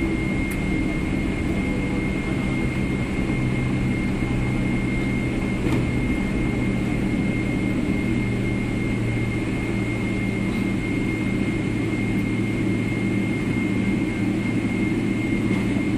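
Airliner cabin noise as the plane rolls along the runway after landing: the engines run steadily, with a low rumble and a constant high whine.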